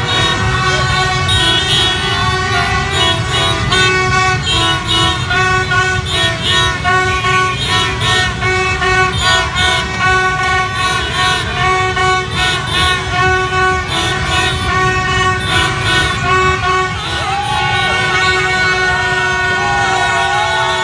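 A dense mass of motorbike horns and handheld plastic trumpets honking together over the rumble of many idling motorbike engines, with the honking pulsing in waves midway. Shouting and cheering voices rise near the end.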